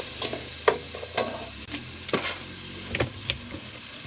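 Chicken Rice-a-Roni's rice and little noodles browning in butter in a pan, sizzling steadily while being stirred, with irregular scrapes and clicks of the stirring utensil against the pan.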